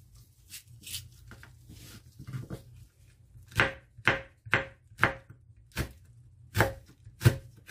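Kitchen knife slicing red and green chili peppers on a bamboo cutting board. Faint light taps at first, then, from about halfway through, sharp knife strikes on the board about two a second.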